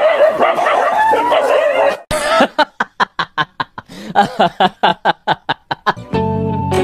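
A fast run of short, staccato snickering laughs, about four to five a second, lasting about three seconds. Before it comes a high, wavering cry; music starts near the end.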